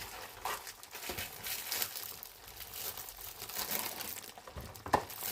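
A ready-made masala spice packet being handled and opened: the wrapper crinkles and rustles in irregular bursts, with one sharp tap near the end.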